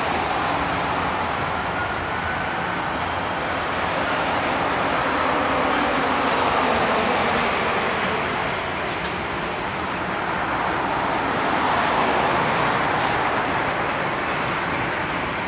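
Freight cars rolling steadily across a steel girder bridge, a continuous rumble and rattle mixed with road traffic passing underneath. A thin high squeal runs for about three seconds starting about four seconds in, and there is one sharp click near the end.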